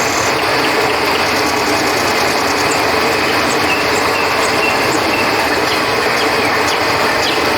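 Steady rush of flowing river water, with crickets chirping over it in a continuous high trill and short repeated chirps.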